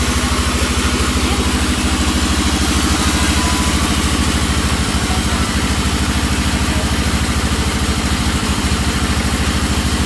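Sawmill band saw ripping lengthwise through an albasia log, its driving engine running with an even, fast pulse and the blade hissing steadily through the wood.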